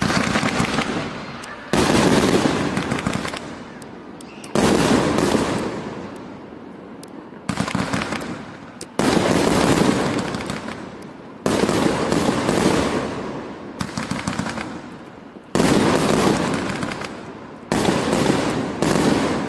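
A 188-shot 'Black Mamba' fireworks cake firing in rapid volleys of shots and bursts. The volleys come in about nine waves, each starting suddenly and fading over a second or two.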